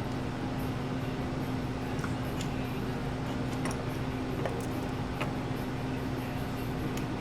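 Steady fan-like hum with a constant low tone, with a few faint light clicks scattered through it.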